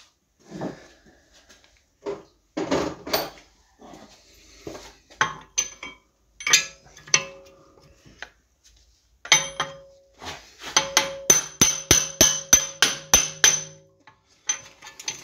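Hammer tapping on the end of a car's driveshaft to drive it out of the front wheel hub: scattered knocks and clunks at first, then a fast run of about eleven ringing metal strikes, about four a second, in the last few seconds.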